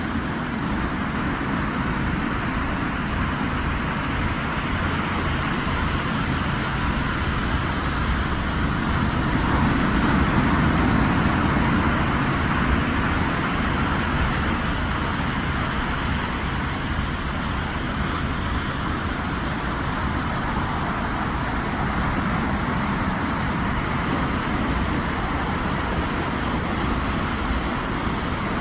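Ocean surf: a steady rushing wash of waves on the beach, swelling about ten seconds in.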